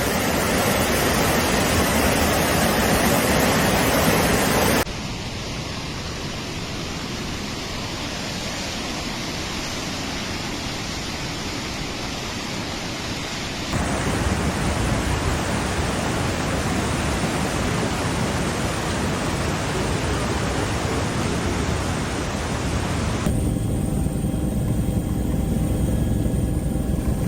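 Steady rushing noise of floodwater, in several clips joined by abrupt cuts, with faint steady tones over it in the last clip.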